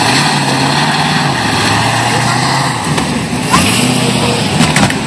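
Supercharged V8 of a first-generation Chevrolet Camaro held at high revs through a burnout, the rear tyres spinning. The engine note stays steady with brief dips, and a few sharp cracks come near the end.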